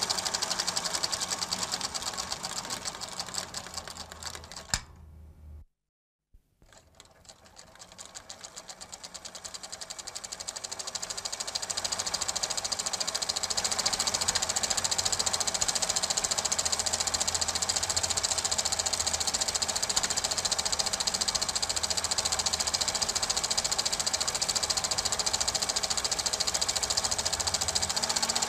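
Super 8 film projector running with a fast, even mechanical clatter and hiss. The clatter fades over the first few seconds, cuts out completely for about a second, then builds back up and runs steadily.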